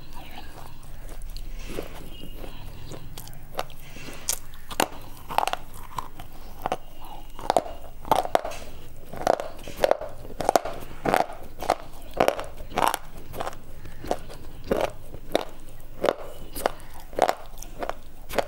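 Crunchy chewing of broken slate bar pieces close to the microphone: a steady run of short, sharp crunches, roughly two a second.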